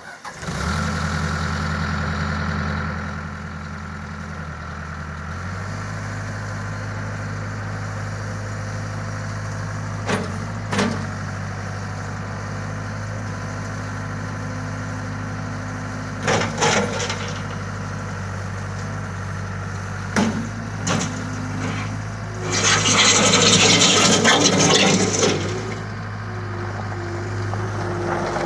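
Case 75XT skid steer's diesel engine starting and then idling steadily, its note shifting and settling about five seconds in. A few short clunks come partway through, and a loud rushing noise lasts about three seconds near the end.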